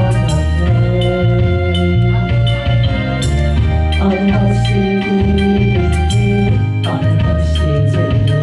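Instrumental introduction of a gospel praise song: accompaniment music with held bass notes, chords that change every second or two, and a steady beat of percussion strikes.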